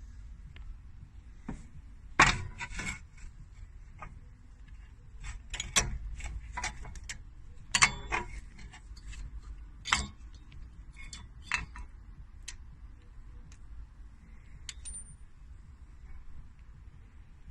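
Irregular metallic clinks, clicks and knocks from hand work on a car's front brakes, as tools and brake parts are handled. The loudest knock comes about two seconds in.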